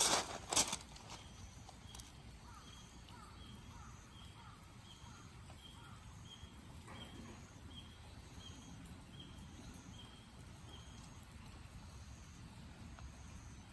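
A couple of footsteps crunching on wet gravel, then quiet outdoor ambience in which a faint high-pitched call repeats evenly, about two to three short notes a second, and stops about eleven seconds in.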